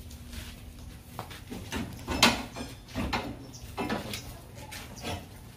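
A few irregular knocks and clunks, the loudest a little over two seconds in.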